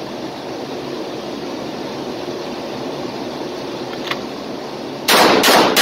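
Walther PPQ 5-inch 9mm pistol fired three times in quick succession, the shots about a third of a second apart, near the end. Before the shots there is a steady background hiss.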